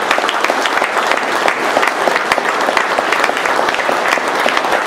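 Audience applause: many people clapping steadily, a dense patter of hand claps.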